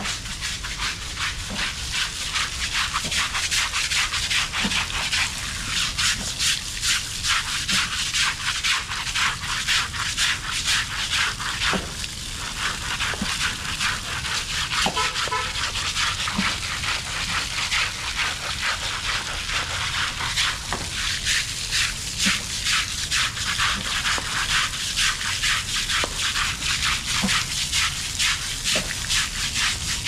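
Rhythmic scrubbing of an elephant's hide during its bath: a rough scrubber is rubbed back and forth in steady, repeated strokes.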